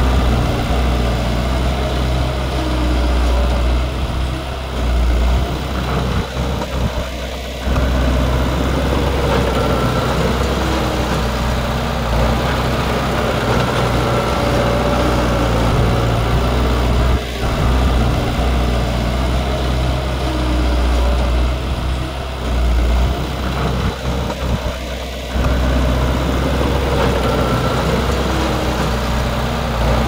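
Heavy diesel engine of earthmoving machinery running steadily under work, with a deep low hum and a few short dips in level.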